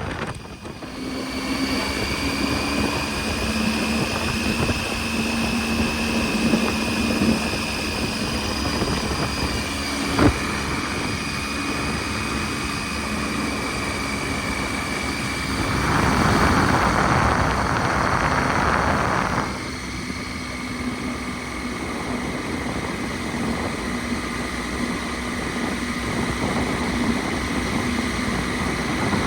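Triumph Tiger 800 XC's three-cylinder engine running steadily, with a brief louder rush of noise a little past the middle and a single click at about ten seconds.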